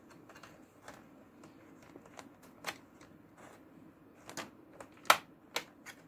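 Scattered small clicks and taps of a thin metal pry tool working under a laptop's plastic hinge cover, with the sharpest snap about five seconds in as the cover pops up.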